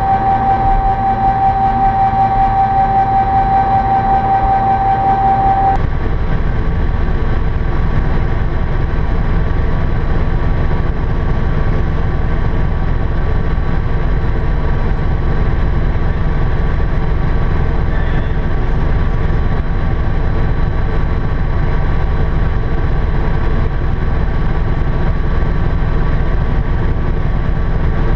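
Helicopter cabin noise: steady engine and rotor noise, heard through the airframe. A steady high tone rides over it for the first six seconds and stops abruptly, after which the low rumble is heavier, as in flight.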